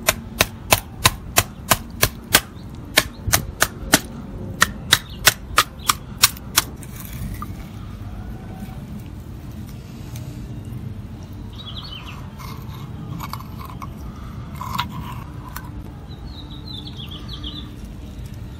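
About twenty sharp cracks in quick succession, roughly three a second with a short pause partway, as the shell of a giant red sea urchin is broken open. After that there is quieter handling with one knock and a few short bird chirps.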